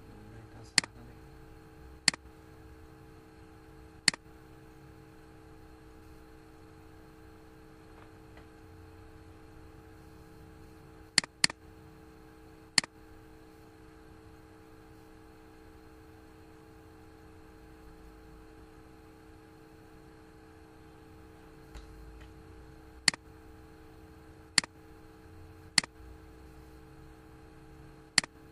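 Computer mouse clicking about ten times at irregular intervals, mostly single clicks with a quick pair about eleven seconds in, over a steady low electrical hum.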